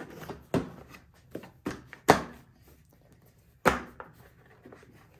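Plastic cover panels of a Westinghouse inverter generator being pressed and snapped back onto its housing by hand: a string of sharp plastic clicks and knocks, the loudest about two seconds in and another strong one near four seconds.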